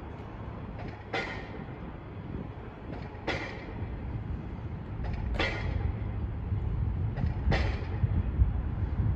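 Approaching VL10U electric locomotive with a container train: a low rumble that grows louder, with a sharp double clack of wheels over rail joints about every two seconds.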